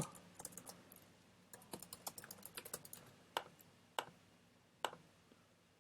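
Faint typing on a computer keyboard: a quick run of keystrokes about a second and a half in, then three single key presses spaced apart near the end.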